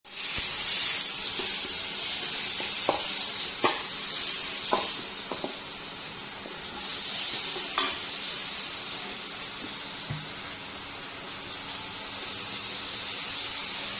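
Food sizzling as it fries in a pan, a steady hiss, with a few light taps of a utensil against the pan.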